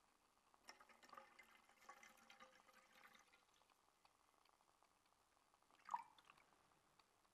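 Water poured from a plastic bottle into a metal pot, faintly splashing for a couple of seconds, then one short sharp sound about six seconds in.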